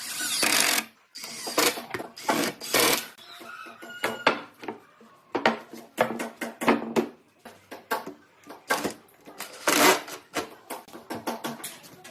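Hand tools working wood: an irregular run of short scraping strokes and sharp knocks.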